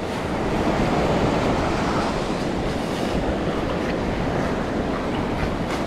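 Steady rush of ocean surf washing in over the sand.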